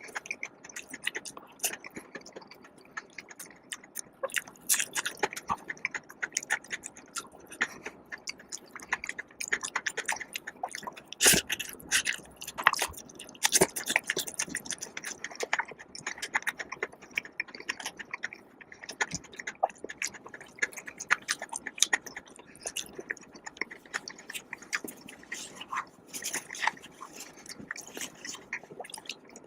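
A person chewing and biting food close to the microphone: a steady run of small wet clicks and crackles, louder for a few seconds near the middle.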